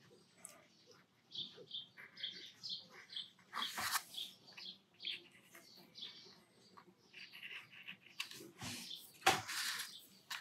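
Faint, squeaky scratching of an ink pen's nib drawing short strokes on Bockingford watercolour paper. A couple of louder scratchy rustles come about four seconds in and near the end.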